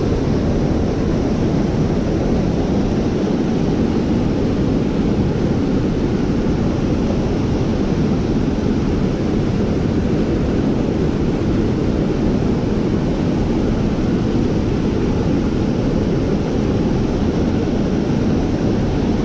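Water pouring over a low dam spillway and churning through the whitewater rapids below: a loud, steady rushing, deepest and strongest in the low end.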